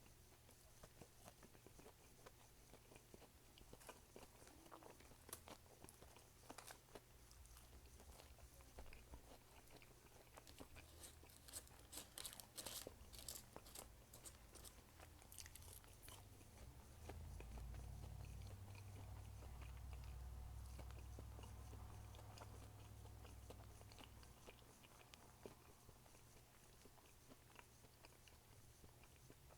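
Faint close-up chewing and crunching of a breaded fish sandwich and fries, with a run of crisper crunches around the middle. A low rumble rises for several seconds after that.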